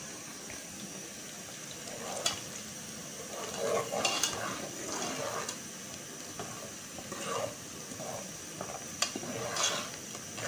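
Onions frying in hot oil in a metal pot, stirred with a metal ladle that scrapes and clinks against the pot now and then.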